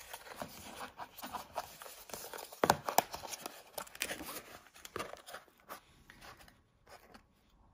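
Cardboard knife box and its plastic wrapping being handled and opened: a sleeve slid off and the lid lifted, with rustling, scraping and a few sharp taps, loudest a little under three seconds in. The sounds thin out near the end.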